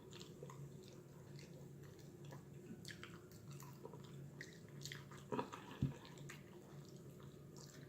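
Close-miked chewing and eating: soft wet mouth clicks and smacks, with a couple of louder mouth sounds about five and a half seconds in.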